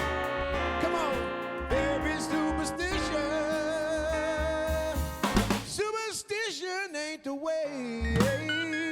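Live band music: horns, keys and guitar playing held notes over bass and drums. For a couple of seconds past the middle the bass and drums drop away while a melody line with wide vibrato carries on, then the full band comes back in.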